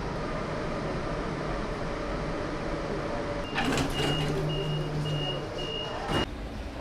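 Metro train carriage rumbling and humming steadily. About halfway in, a knock and a run of short high door-warning beeps, about two a second, sound as the sliding doors operate. The sound cuts off suddenly near the end.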